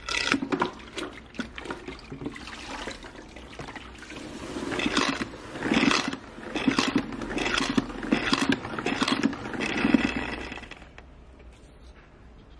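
Plastic spin-mop bucket: the mop is pumped up and down in the spinner basket, spinning the mop head and flinging water off it in a run of repeated pushes that dies away shortly before the end.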